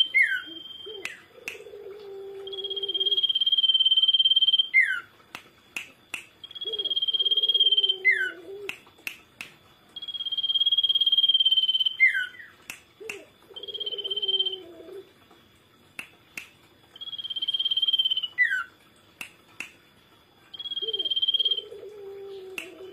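Common iora (cipow/sirtu) singing: a long high note held for a second or two, usually ending in a quick falling slur, repeated every three to four seconds. Sharp clicks fall between the phrases, and a much lower, wavering sound alternates with the song.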